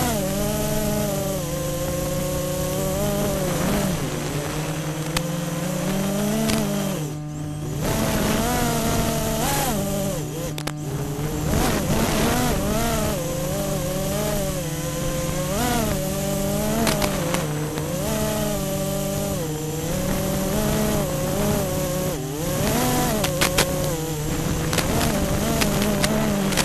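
FPV racing quadcopter's brushless motors and propellers, a buzzing whine whose pitch swoops up and down constantly with the throttle. It dips sharply twice when the throttle is chopped, and a few sharp ticks come near the end.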